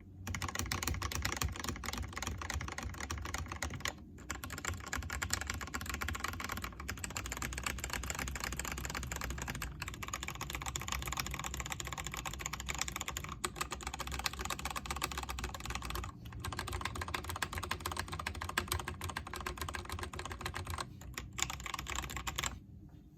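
Fast, continuous typing on a Delux T6 mechanical keyboard fitted with lubed Kailh Box Red linear switches, mixed with Kailh Box Silent Pink switches on the right side. The keystrokes run with a few brief pauses and stop shortly before the end.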